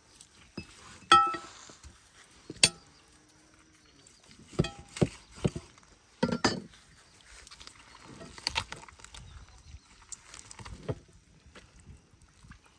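Irregular sharp knocks and clinks, about half a dozen, spaced a second or more apart. The loudest is a short ringing clink about a second in.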